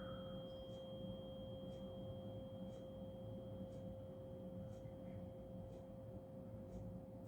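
A 528 Hz tuning fork ringing with a steady pure tone and a faint high overtone above it, fading slowly.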